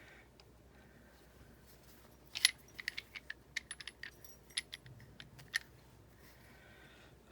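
A run of light metallic clicks and clinks, about a dozen over some three seconds, starting about two seconds in, the first the loudest: small metal parts or a tool being handled while working on a die-cutting machine.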